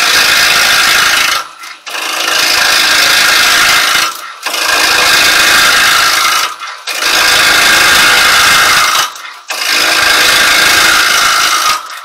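Carbide chisel with a 12 mm round cutter shearing a spinning silver birch bowl blank on a wood lathe: a loud hissing scrape in about five passes of roughly two seconds each, with brief dips as the tool eases off the wood between passes.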